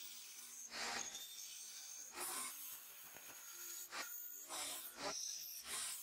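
Hand file rasping across a thin brass knife-handle piece in short, irregular strokes, about five or six of them.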